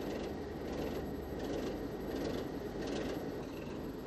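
Train running along the track: a steady rumble with a light clatter repeating roughly every half second.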